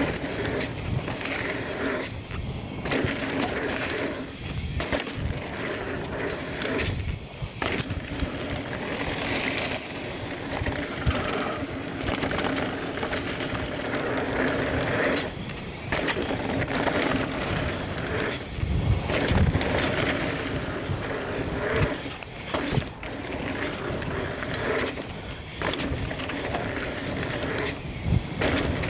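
Mountain bike ridden fast down a rocky enduro trail: tyres on dirt and rock with frequent knocks and rattles from the bike. A steady buzz runs underneath and breaks off in short gaps, and there are a few brief high squeaks.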